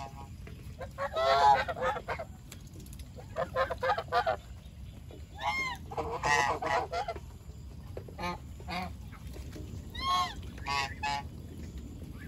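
Farm geese honking in short clusters of several calls, about every two seconds, with a steady low background noise underneath.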